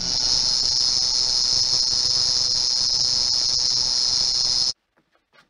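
Electric bedside alarm clock ringing with a steady high-pitched ring. It cuts off suddenly as it is switched off about four and a half seconds in, followed by a couple of faint clicks.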